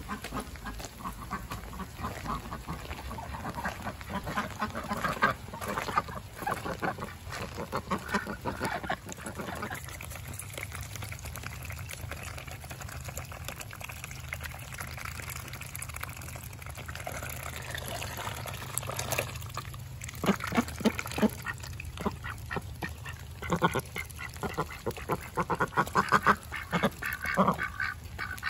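Cayuga ducks quacking and dabbling with their bills in a bowl of cooked brown rice, in busy flurries during the first nine seconds and again over the last eight. In the quieter middle stretch a steady low hum is left.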